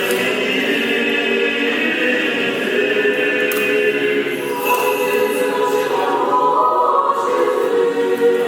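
Choir singing Orthodox church chant without accompaniment, several voices holding long notes.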